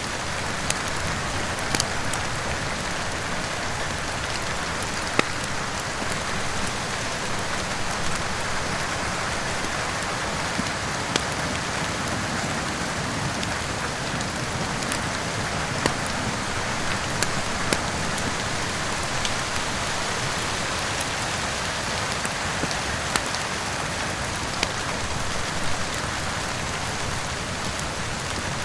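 Steady rain together with a crackling fireplace fire: an even hiss of rain with sharp pops every second or two.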